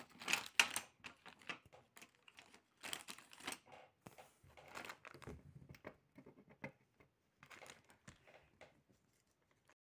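Paper and clear sticky tape crinkling and rustling as a taped paper cutout is handled, in short irregular rustles with pauses between them, quieter near the end.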